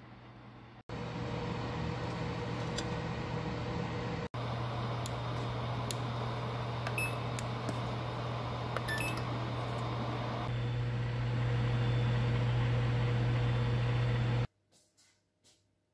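Countertop electric oven running with a steady hum, with several clicks and two short beeps as its dial and buttons are set. The hum grows louder near the end and then cuts off abruptly.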